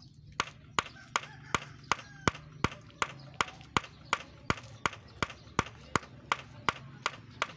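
A small hand hammer striking in a steady, even rhythm of about three blows a second, some twenty sharp blows in all, the first about half a second in.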